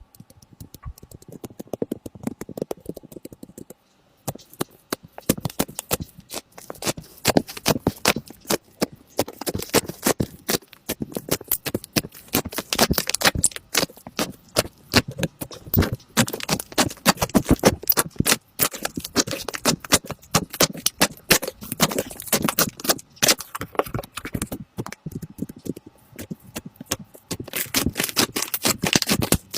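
Slime being squished and worked, a dense run of wet clicks and pops; sparser at first, then thicker after a short pause about four seconds in.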